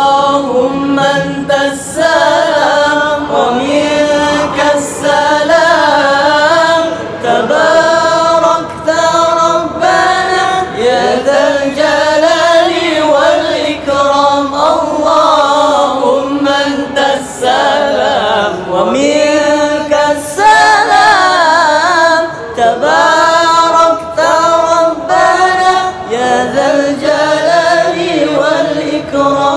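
Group of young men singing an Islamic sholawat together, unaccompanied, in a sliding, ornamented melody.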